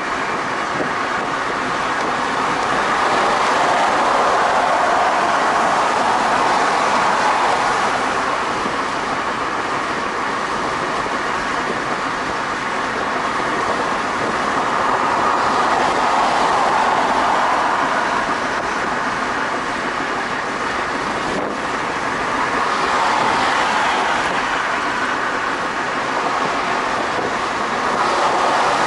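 Steady tyre and road noise of a car cruising at freeway speed, heard from inside the cabin, swelling louder a few times as vehicles pass alongside.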